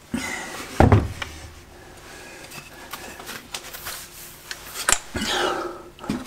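Wooden parts of a homemade belt sander knocking and scraping as they are lifted and taken apart by hand: one sharp knock about a second in, then light clicks and a scrape near the end.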